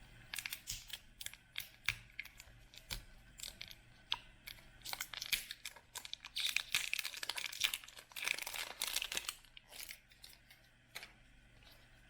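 Wrapping of a surprise toy ball being crinkled and torn by hand, a run of sharp crackles that grows into dense crinkling in the middle and thins out near the end.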